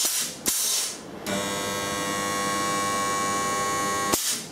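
Two short hisses of compressed air from a pneumatic rod butt welder, then the welder's transformer hums steadily while annealing current heats the clamped steel rod red-hot. The hum cuts off suddenly near the end, followed by one more short hiss of air.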